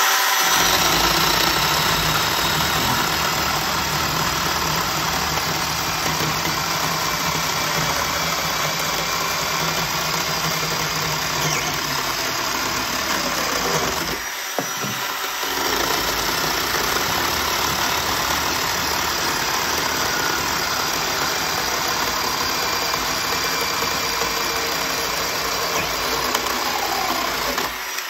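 Bauer 20-volt 10-inch cordless electric chainsaw running and cutting through a block of solid oak, its chain chewing steadily through the wood in two long cuts. The sound dips briefly about halfway through, between the cuts, and cuts off near the end when the saw stops.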